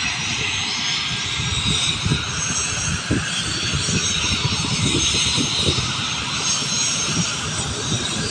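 Aircraft turbine engines running: a steady high whine and rush, with an uneven low rumble underneath.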